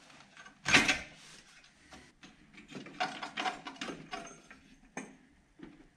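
Metal clinks, knocks and rattles of hand work on the engine as the EGR cooler's pipe and bracket are worked loose: one sharp knock about a second in, then a run of rattling clicks in the middle and a few single knocks near the end.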